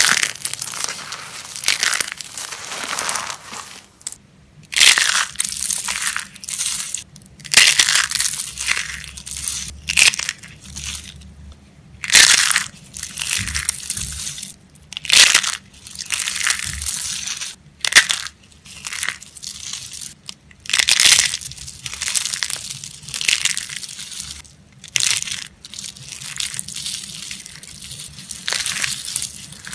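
Old coloured soap being crushed: a run of dry crunching and crackling, in irregular bursts a second or two apart, several of them sharp and loud.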